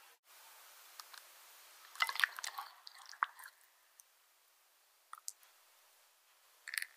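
Soft wet squishes and clicks of egg yolk and thick yellow batter being tipped and poured into a glass mixing bowl, mostly bunched together about two to three seconds in, with a few small clicks later.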